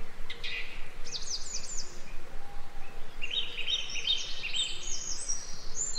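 Songbirds singing in a forest: several phrases of quick, high, repeated chirps and short trills from more than one bird, over a steady faint background noise.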